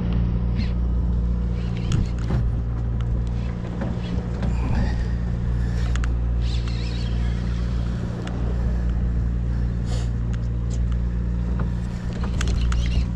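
Sportfishing boat's engine running steadily, a low even drone, with a few scattered clicks and knocks.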